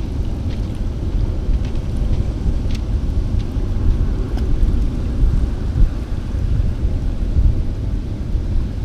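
Wind buffeting an outdoor microphone: a steady low rumble, with a few faint clicks.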